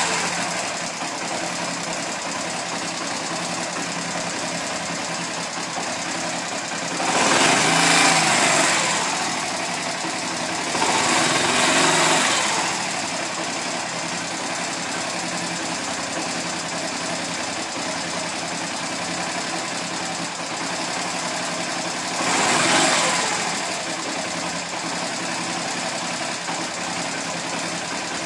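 Honda Eco 100 motorcycle's small single-cylinder four-stroke engine idling steadily. The throttle is blipped three times, each a short rev of a second or two, rising and falling back to idle: about a quarter of the way in, near the middle, and about four-fifths of the way through.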